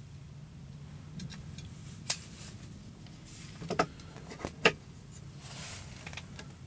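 Handling noises inside an ice-fishing shanty: a few sharp clicks and knocks, the loudest near two-thirds of the way through, and a couple of soft rustles over a low steady hum.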